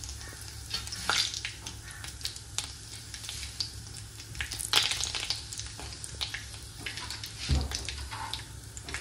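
Tadka of hot oil in a kadhai sizzling and crackling as curry leaves go in with the spluttering mustard seeds and cumin, with irregular sharp pops throughout. A dull knock a little after seven seconds.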